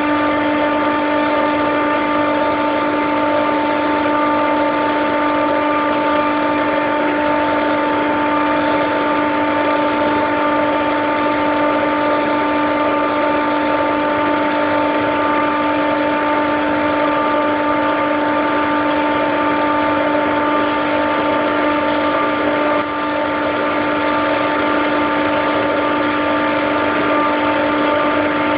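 Compressor of a Daikin EWLDJ235-SS chiller running with a steady whine of several constant tones over a loud machinery hum. The uploader finds the sound strange.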